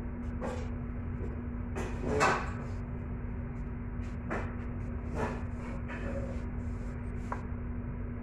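Steady low hum with scattered clicks and knocks from handling capsicums and dishes on a kitchen counter; the loudest is a clattering knock about two seconds in.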